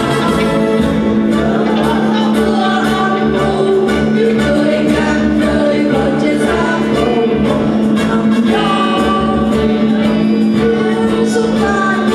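A mixed choir of men's and women's voices singing a Vietnamese song together over an instrumental accompaniment with a steady beat.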